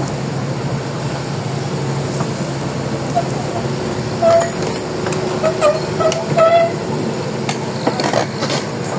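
Crawler excavator running as it travels, with a steady engine drone. From about halfway, short high squeals come in, and a few clanks follow near the end.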